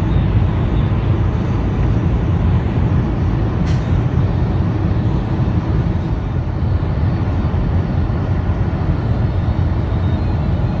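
Semi truck driving, a steady low rumble of engine and road noise, with a single click about four seconds in.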